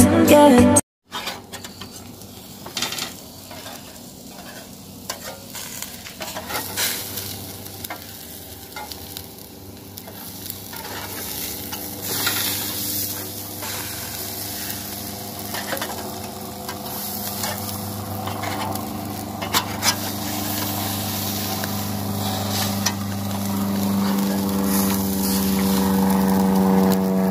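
Beef burger patties sizzling over charcoal on a small grill's grate, with a few sharp clicks of metal utensils against the grate. A steady low drone grows louder toward the end.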